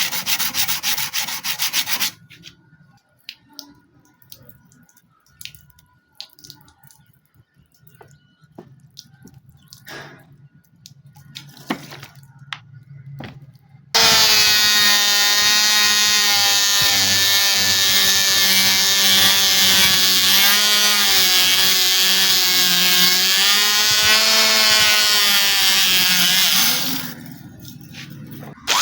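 Abrasive sanding on metal for about two seconds, then quiet handling with scattered small clicks and taps. About halfway through, an electric power tool starts and runs with a steady whine whose pitch wavers slightly under load, cutting out shortly before the end.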